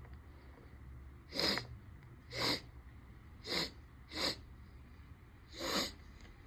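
A man sneezing five times in quick succession, each sneeze short and sharp, set off by sniffing chhinkni, a sneeze-inducing herbal powder, and perfume spray.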